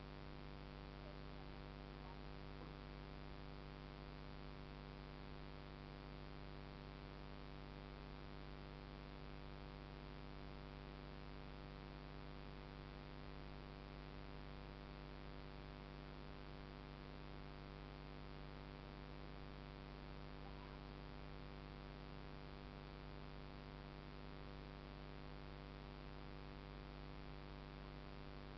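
Steady, faint electrical hum with a light hiss under it, and no other sound.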